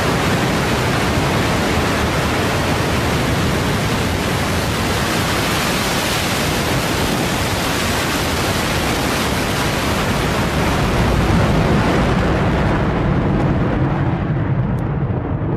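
Blue Origin New Shepard's BE-3 hydrogen-oxygen rocket engine at liftoff: a loud, steady rumble as the rocket clears the tower, its higher tones fading away over the last few seconds as it climbs off.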